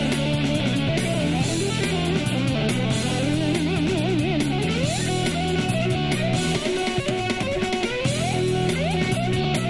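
Solid-body electric ukulele playing an amplified lead line, with wavering vibrato and string bends, then several quick upward slides. It plays over a backing of stepping bass notes and drums.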